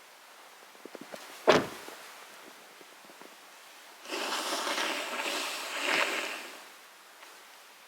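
A single sharp knock, then a rushing, watery hiss for about two and a half seconds, over a few small crackles of a wood campfire.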